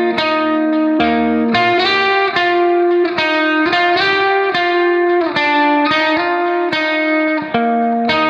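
Background music: a plucked guitar melody, one note after another at an even pace.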